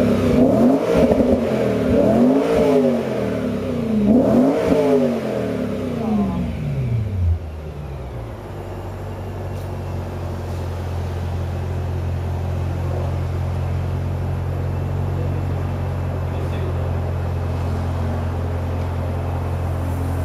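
BMW E92 M3's 4.0-litre V8 through an Ericsson Progress-spec aftermarket exhaust, revved up and dropping back several times over the first seven seconds. It then settles to a steady idle.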